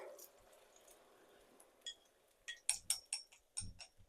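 Several light clinks of a cooking utensil against a pan or bowl, each with a short ringing tone. There is a single clink about two seconds in, then a quick run of clinks near the end.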